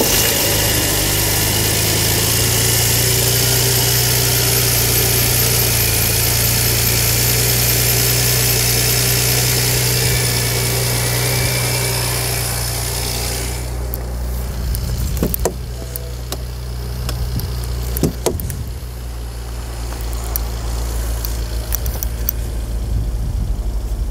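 BMW 7 Series engine idling just after being started, a steady hum with a loud high hiss over it for the first half that drops away about halfway through, leaving a quieter idle with a couple of short clicks.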